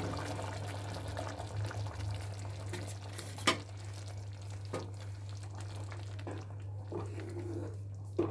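A pot of kuruma bubbling at the boil while a spoon stirs it, with a sharp clink of metal on the pan about three and a half seconds in and lighter taps later, over a steady low hum.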